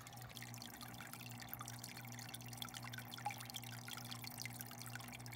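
Aquarium hang-on-back filter outflow trickling and splashing into the tank water, with a steady low hum beneath and faint scattered drips.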